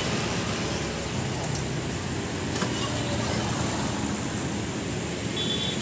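Steady road traffic: a motor scooter and a small car driving past, their engines and tyres making a continuous hum.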